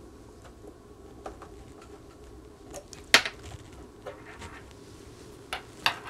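Coax cables being disconnected from a spectrum analyzer's front-panel RF connectors and the small attenuator handled: a few light clicks and knocks, the sharpest about three seconds in, over a low steady hum.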